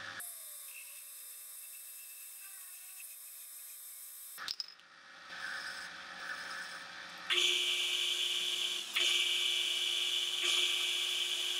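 Metal lathe spinning a steel shock-absorber tube while a carbide tool turns its end and a boring bar cuts inside it, heard in short shots that change abruptly about 4 and 7 seconds in. The last shot is the loudest, with a steady high whine as the boring bar cuts.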